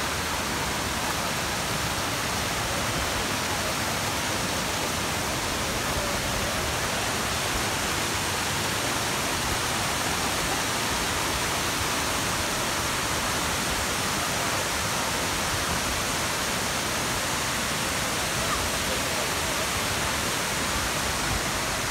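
Large tiered waterfall cascading into pools: a steady, even rush of falling water.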